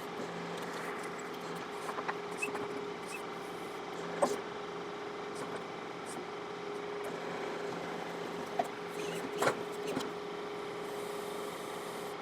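John Deere 4052R compact tractor's diesel engine running steadily while its 485A backhoe digs at a tree stump, with scattered knocks and cracks, the loudest about four seconds in and again around nine to ten seconds in.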